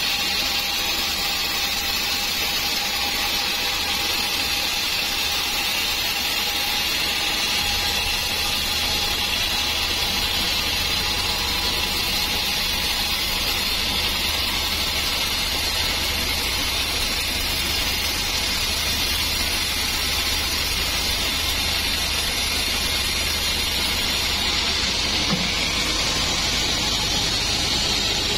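Sawmill band saw running steadily, its blade cutting lengthwise through a teak log, a constant machine noise with a low hum and a faint steady whine.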